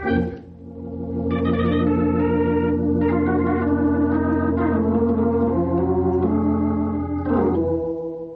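Organ playing a short musical bridge of held, shifting chords that fade out near the end: a radio-drama cue marking a change of scene.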